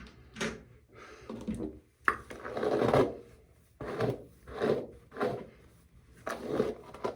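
A wig's hair being brushed out: repeated rasping brush strokes through the strands, light at first and then firmer, roughly one every second.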